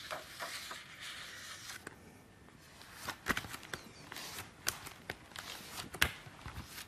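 Glossy magazine pages being leafed through by hand: paper rustling, with several sharp snaps as pages flip over from about three seconds in, the loudest near six seconds.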